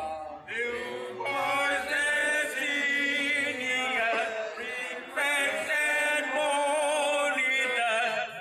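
A group of men singing an English school song together in unison, with long held notes; the sung lines are "May we ne'er swerve, new boy and senior, prefects and monitors".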